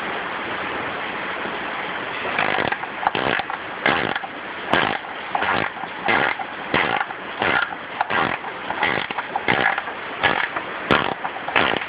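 Steady rain hiss. From about two seconds in it gives way to a run of short rasping strokes, roughly one or two a second, from hand work on a mower deck.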